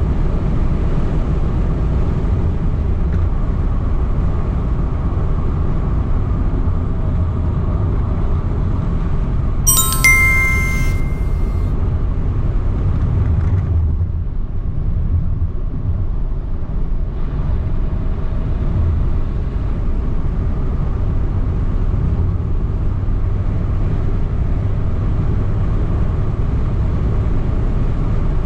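Steady low road and engine rumble inside a moving car's cabin. About ten seconds in, a short bright chime of several ringing tones sounds for about a second.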